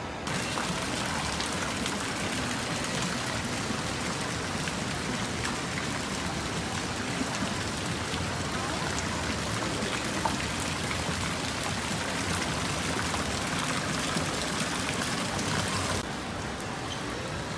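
Water from a decorative fountain's jets splashing into its stone basin, a steady hiss of falling water that starts suddenly and turns quieter near the end.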